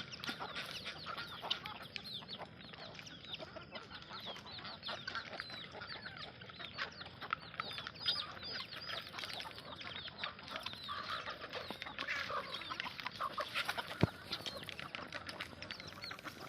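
A flock of country chickens calling, many short high calls and clucks overlapping throughout, with a single sharp click near the end.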